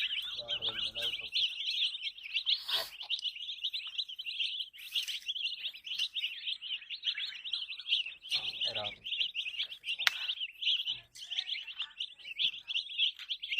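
A crowd of baby chicks peeping continuously, many rapid high chirps overlapping.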